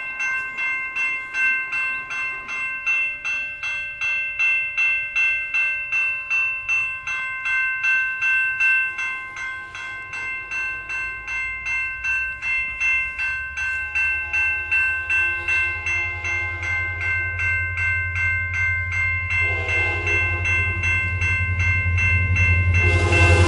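Level-crossing bell ringing steadily at two to three strikes a second while an approaching CN freight train's diesel locomotive rumbles louder from about halfway through. The locomotive's horn sounds for the crossing in the last few seconds, getting louder and loudest at the very end.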